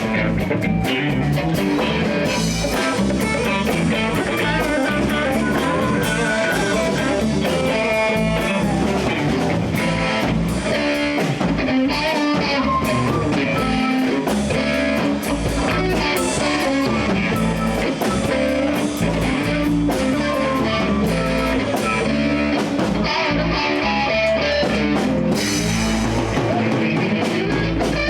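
Live blues band playing: electric guitar over a drum kit and bass.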